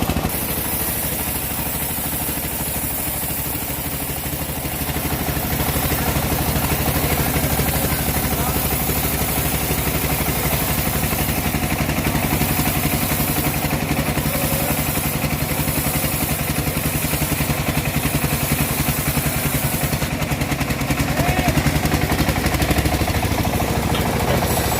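Engine of a homemade log bandsaw running steadily, with a rapid even firing beat; slightly quieter for the first few seconds.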